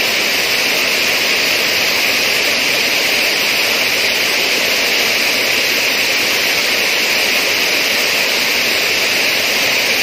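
River water rushing over rocks with a steady, even roar.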